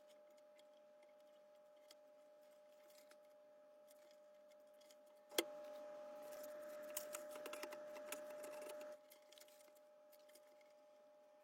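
Near silence with faint scattered clicks over a faint steady tone. About five seconds in comes a sharp click, then a few seconds of louder hiss with small clicks, which stops suddenly.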